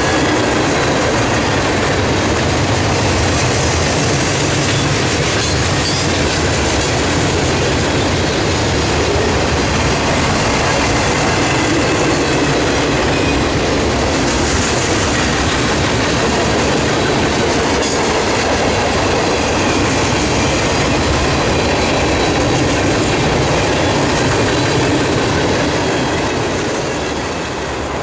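Freight cars of a long mixed freight train rolling past close by: a loud, steady rumble and clatter of steel wheels on rail that eases off slightly near the end.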